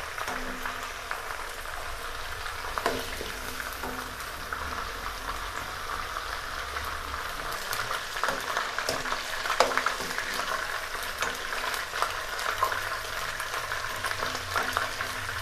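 Chicken pieces frying in hot oil in a wok, a steady sizzle with crackling pops, while a steel ladle scrapes and knocks against the pan now and then as the pieces are scooped out.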